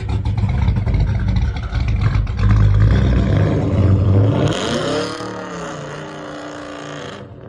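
The 413 cubic inch stroker small-block Ford V8 of a 1985 Fox Body Mustang, with a big cam, Holley carburettor and Flowmaster exhaust, running loud with a deep rumble. About four and a half seconds in the rumble drops away to a quieter engine note that rises and falls, and the sound cuts off near the end.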